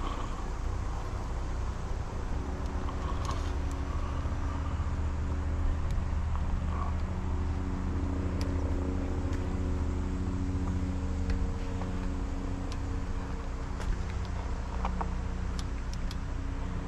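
Riding noise from a fat-tire e-bike on the move: a low rumble of tyres and wind with a steady hum that sets in about two seconds in and holds, and scattered small clicks.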